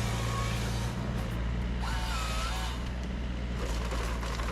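Forestry harvester's diesel engine running steadily, with a brief high whine about two seconds in.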